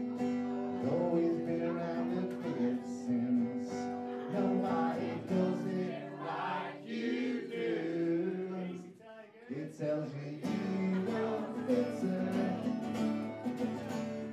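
A man sings live into a microphone while strumming an acoustic guitar, with a short break in the music about nine seconds in.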